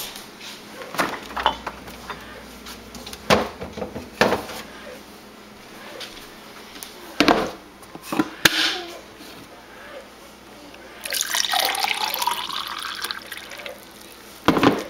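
Kitchen clunks and knocks as a cup and container are handled, then juice pouring into a cup for about two and a half seconds, starting about eleven seconds in.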